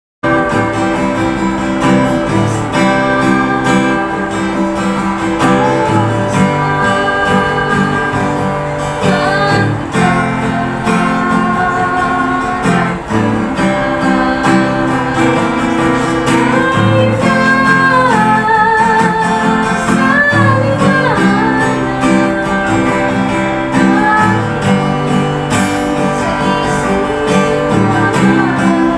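Acoustic guitar strummed as accompaniment while a woman sings along, her held notes wavering with vibrato.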